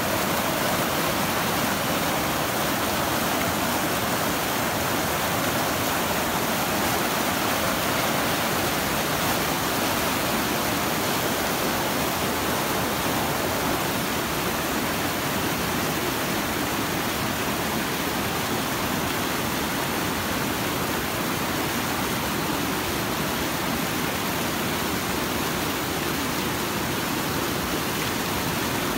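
Mountain river rushing over rocks in whitewater rapids: a steady, unbroken rush of water.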